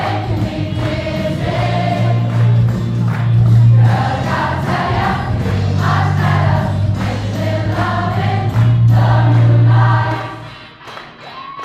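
A large, mostly female choir singing a pop song in harmony over a deep, steadily held bass line. Near the end the singing and bass drop away into a short pause.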